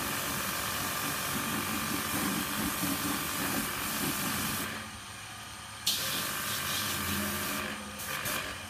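Water running from a garden hose during a car wash, a steady hiss with a rough, splashing rumble under it. It dies down a little over halfway through, then a sudden sharp noise is followed by more hiss of water and a few short splashes near the end.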